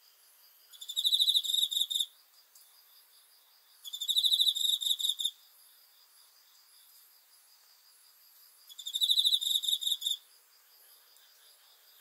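Field cricket chirping: three pulsed trills of a second or so each, high-pitched, spaced a few seconds apart, over a faint steady chorus of other insects.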